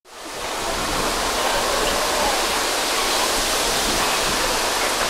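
A steady rushing noise that fades in over the first half second and then holds even, with no distinct events.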